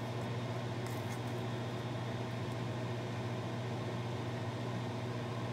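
Steady drone of a work hood's exhaust fan: a constant low hum with an even hiss over it. One faint light tick about a second in.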